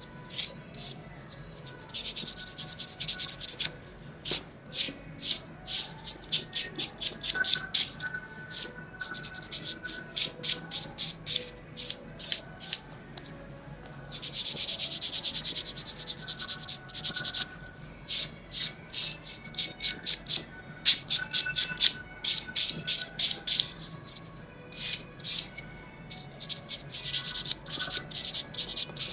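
Nail buffer block rubbing across fingernails in rapid short back-and-forth strokes, with a couple of longer unbroken passes, a dry scratchy hiss.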